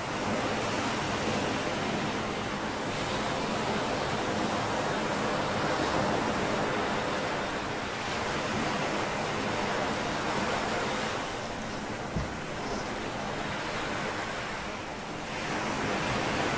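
Ocean surf breaking and washing up onto a beach: a steady rushing that swells and eases gently.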